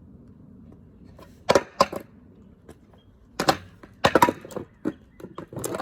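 A run of loud, sharp bangs and clatters of hard objects smashed on the ground, coming in uneven clusters, about seven in all, starting about a second and a half in. They are made on purpose to startle a dog for noise desensitisation.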